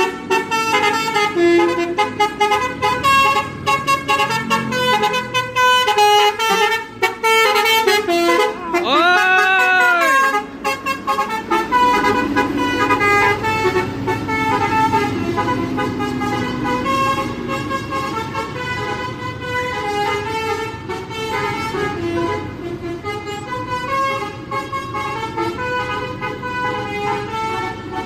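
Indonesian bus 'basuri' telolet horn, a set of musical air horns playing a song melody note by note, with a rising-and-falling swoop about nine seconds in.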